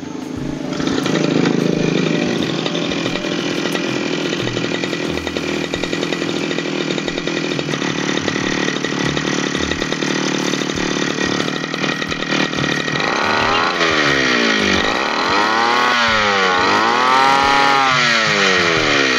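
Backpack brush cutter engine starting and catching about a second in, then idling steadily at a normal low speed with no runaway revving, showing that the tightened throttle cable has cured the self-revving fault. From about 13 seconds in it is revved up and down several times with the throttle.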